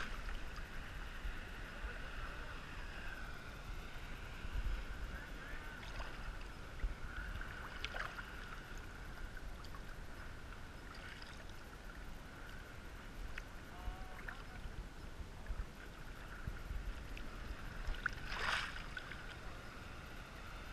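Seawater sloshing around a GoPro held at the surface in small waves, with a few short splashes, the loudest near the end.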